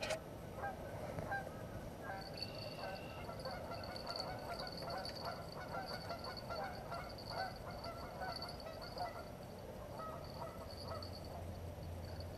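A flock of geese honking, many short calls overlapping and repeating without a break.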